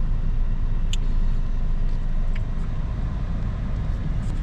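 Steady low road and engine rumble of a car being driven, heard from inside the cabin, with a couple of faint ticks.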